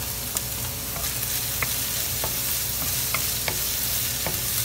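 Diced onion, garlic and ginger sizzling in hot oil in a stainless steel wok, with a steady hiss. A wooden spatula stirs them, scraping and tapping against the pan in irregular clicks. This is the sauté of the aromatics.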